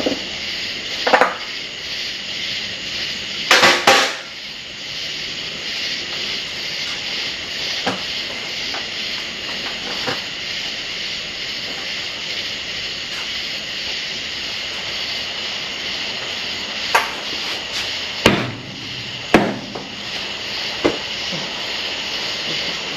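Scattered metallic clanks and knocks of hand tools being handled and set down: one about a second in, a quick cluster near four seconds, and a run of several late on. A steady high hiss lies under them throughout.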